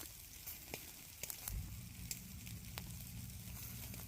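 Pork back ribs sizzling over an oak wood fire, with scattered pops and crackles from the burning wood. A low steady hum comes in about a second and a half in.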